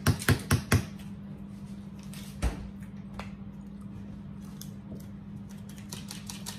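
Condiment bottles handled and shaken over a plate of food: four quick sharp clicks in the first second, a single knock about two and a half seconds in, and a few light ticks near the end, over a steady low hum.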